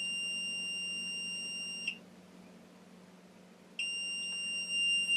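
Continuity tester giving a steady high beep while a burglar-alarm surface contact's reed switch is held closed by its magnet. The beep cuts off about two seconds in as the switch opens, then comes back on nearly two seconds later as the switch closes again.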